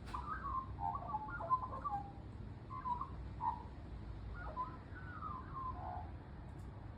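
Australian magpie warbling: phrases of short, fluting notes and gliding whistles, ending about six seconds in.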